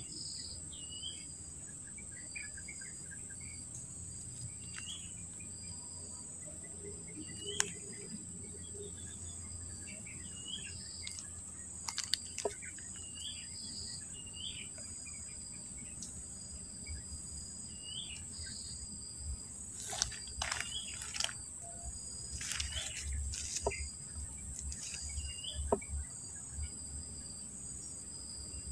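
Riverside ambience: insects keep up a steady high-pitched buzz and trill, and a bird repeats a short call every second or two. A low rumble runs underneath, and a few sharp clicks and knocks come in the last third.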